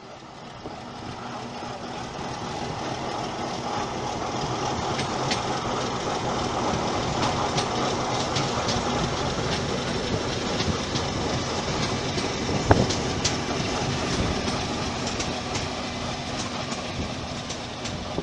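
Electric commuter train passing on the main line, wheels clicking on the rails, growing louder over the first few seconds and easing off near the end, with one sharp knock about two-thirds of the way through.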